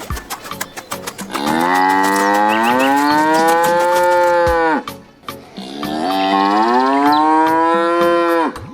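Cow mooing twice: two long, drawn-out moos, each rising in pitch and then holding, with short clicks in between.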